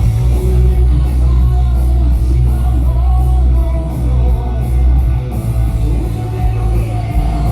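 Loud rock music with singing and guitar, played through a large sound system with a heavy, steady bass.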